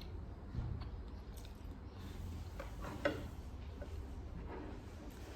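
A person chewing food, with soft mouth sounds and one short click about three seconds in.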